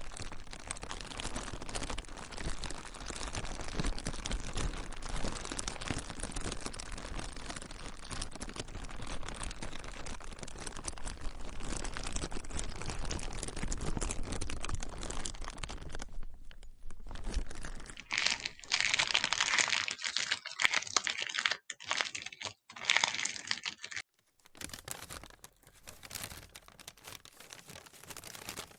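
Plastic being crinkled and crumpled: a dense, continuous crackling, a brief lull about two-thirds of the way in, then a stretch of louder, sharper crinkling. After an abrupt cut it continues as sparser, separate crackles.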